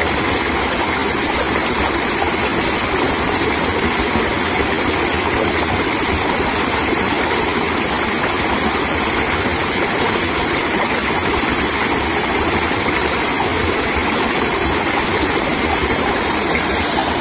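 Small rocky stream running high, its water rushing and splashing over a rock ledge: a steady, unbroken rush of water.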